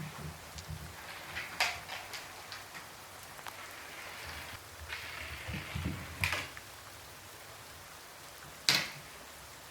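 Steady rain falling, with a few sharp drops or taps standing out over it, the loudest near the end.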